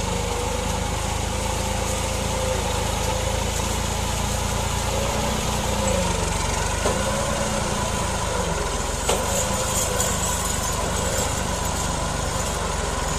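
Farm tractor's diesel engine running steadily under load as it hauls a heavy load of sugarcane, its pitch wavering slightly.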